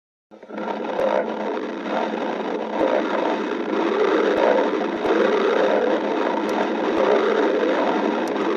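A person's stomach growling: one long, continuous gurgling rumble that wavers in level, starting suddenly just after the beginning, with a few faint clicks.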